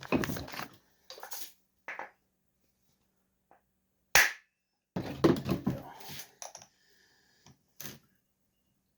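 Hand tools and saw parts being handled on a workbench during a chainsaw teardown: a series of knocks and rattles, with one sharp knock about four seconds in and a longer stretch of clattering after it.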